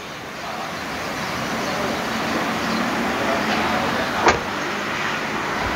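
A motor vehicle running nearby, its steady noise building up over the first second or two and then holding, with a single sharp click a little past four seconds in.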